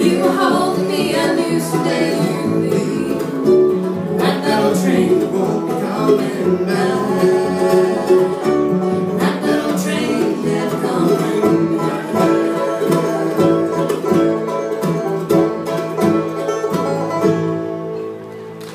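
Bluegrass string band playing: banjo, acoustic guitar, fiddle and upright bass together. The tune comes to its close a second or so before the end.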